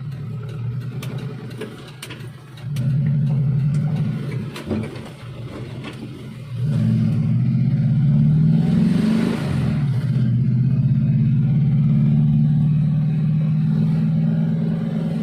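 Suzuki Espass minivan's engine running, loaded, with its revs stepping up twice and then holding steady. A short hissing sweep passes over it about two thirds of the way through.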